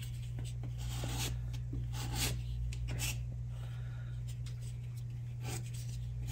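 Metal putty knife scraping pink spackle across a painted wall in short strokes, smoothing filler over a patched hole, with a steady low hum underneath.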